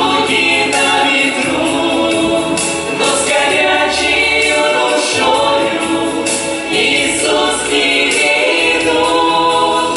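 A family vocal ensemble singing a Christian New Year hymn, several voices in harmony.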